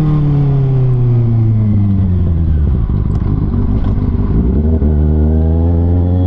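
Kawasaki ZX-6R's 636 cc inline-four through an Austin Racing exhaust, engine speed falling steadily for about three seconds as the bike slows, then settling to a steady note.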